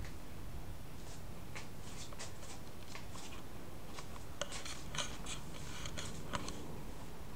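Irregular light clicks and ticks, denser in the second half, over a steady low hum.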